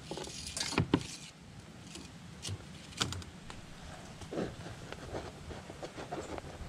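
Metal pliers jangling and clicking against a fishing hook and line while a hooked turtle is unhooked on a plastic kayak deck, with sharp knocks. The jangling is heaviest in the first second or so, with the loudest clicks about a second in, then lighter scattered clicks.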